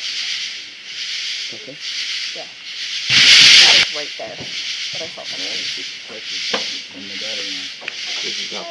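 Amplified night-time field recording played back as an EVP: a hiss that swells and fades about once a second, with faint wavering tones beneath it. About three seconds in comes a louder burst of hiss, which the investigators present as a voice asking "please send help?".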